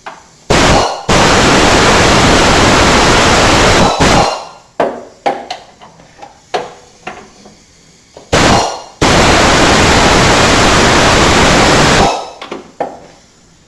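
Impact wrench hammering in two long runs of about three to four seconds each, each after a short blip, spinning out the 15 mm motor mounting bolts of a riding mower's engine. Short metallic clicks and knocks of the bolts and tool come between and after the runs.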